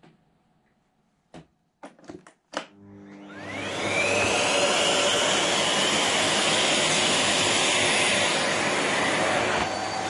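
A few sharp clicks, then a canister vacuum cleaner switched on about three seconds in, its motor whining up to speed over about a second and then running steadily.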